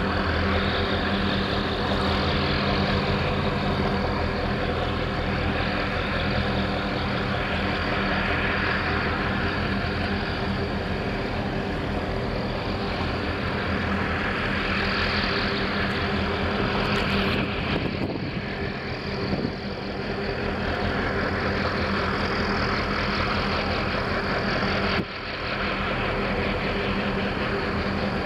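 A boat engine running steadily with a low, even hum, over a rush of water and wind noise. The sound dips briefly and suddenly near the end.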